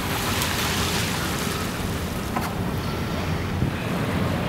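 Wind buffeting the microphone over small waves washing onto the shore, a steady noise with a heavy low rumble. A few faint clicks sound over it.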